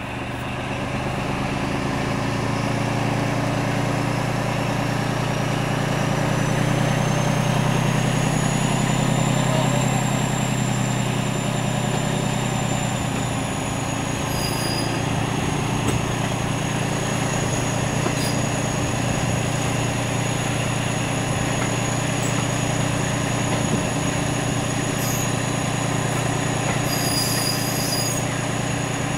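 Train hauled by Class 14 diesel-hydraulic locomotive D9520, heard from an open carriage window while under way: a steady rumble of wheels on rail and rushing air, with the locomotive's engine hum strongest in the first half. A thin, high wheel squeal rises in pitch over the first several seconds and then holds as the train takes a curve, with a few faint clicks later on.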